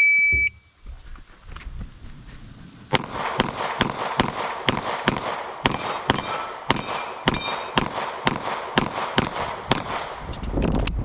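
Electronic shot timer beep, then about three seconds later a fast string of pistol shots, roughly three a second, with steel targets ringing among them.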